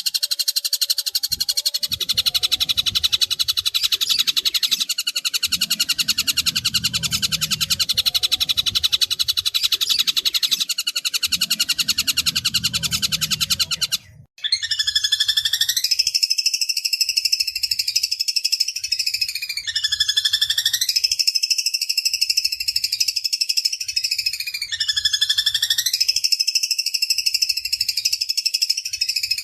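Recorded bird calls, loud and continuous: a fast, harsh chattering rattle for about fourteen seconds, then a brief break and a different call repeated four times about five seconds apart, each a swooping note that runs into a held, rasping trill.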